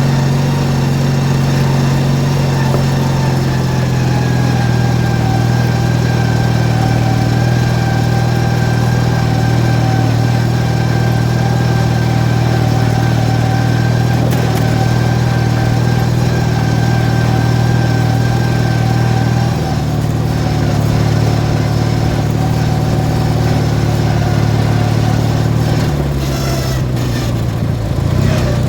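18 hp Briggs & Stratton twin-cylinder engine of a modified Craftsman lawn tractor running steadily. The engine note shifts about two-thirds of the way through and again near the end, with some rattling in the last couple of seconds.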